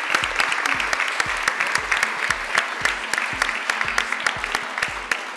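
An audience applauding: many people clapping together in a dense, steady run of claps.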